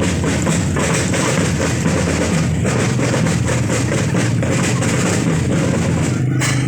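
School marching drum band playing, with bass drums and snare drums beating steadily.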